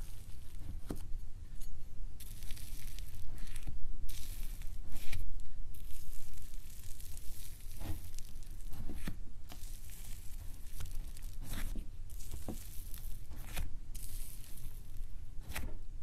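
Fluffy slime being scooped and folded with a metal spoon in a bowl: irregular bursts of crackling and tearing as the airy slime stretches and pulls apart, with a few sharp clicks.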